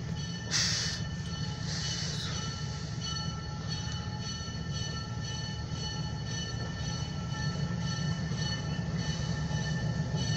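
Train coming closer: a steady low rumble that grows louder toward the end, with a faint steady high whine over it and two short hisses in the first couple of seconds.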